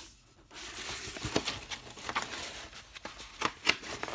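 Stiff rolled paper poster being unrolled and handled, the paper rustling with several sharp crackles after a brief quiet moment.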